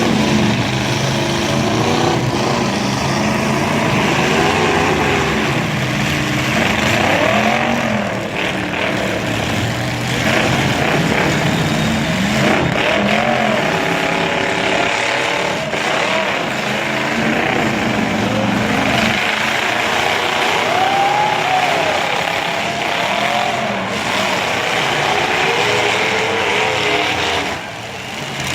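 Several demolition derby cars' engines revving at once, their pitches rising and falling over one another, with a few sharp knocks from cars hitting each other.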